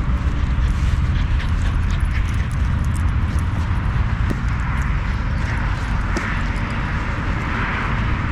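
Footsteps on a trail, irregular crunching steps, over a steady low wind rumble on the microphone.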